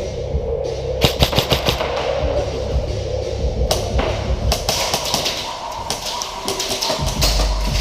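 Airsoft electric rifle fire: a quick string of shots about a second in, then scattered single shots, over background music.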